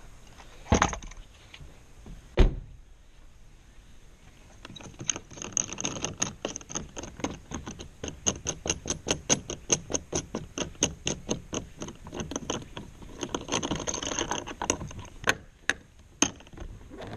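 Fitting on a car roof-rack crossbar being worked loose by hand. Two sharp knocks come first, then a long run of fast, even clicking, about four or five clicks a second, that stops near the end.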